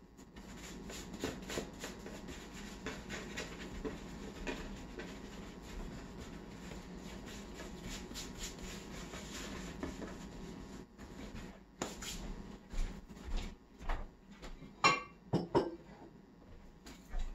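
Hands rolling and pressing bread dough on a floured wooden board: soft rubbing and patting. In the last few seconds, a string of short, sharp knocks and clinks.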